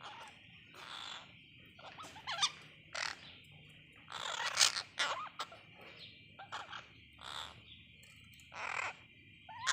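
Parakeets squawking: about a dozen short, harsh calls, the loudest about four and a half seconds in, over a steady high-pitched background drone.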